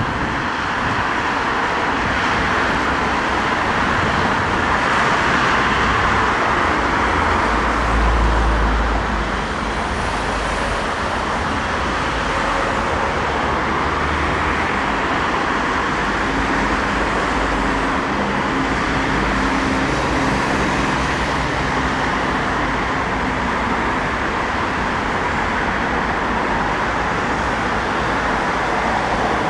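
Steady rumble and hiss of passing vehicles, with a deep low boom about eight seconds in and a faint humming tone joining in the middle.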